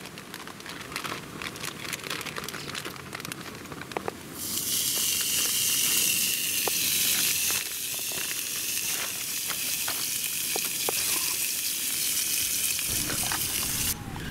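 Marbled wagyu steak on a hot ridged grill plate over a canister gas stove. There is light crackling at first; about four seconds in, a loud sizzle starts suddenly as the meat meets the hot metal. The sizzle continues steadily and stops abruptly near the end.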